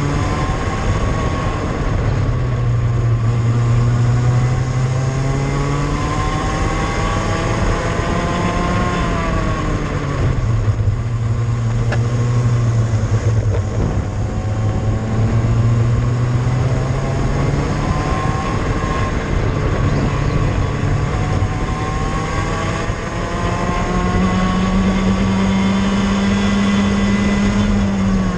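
Cadet go-kart engine heard from on board, its pitch climbing as the kart accelerates and falling as the driver lifts for corners: a sharp drop about nine seconds in, a long climb from about halfway, and a drop right at the end.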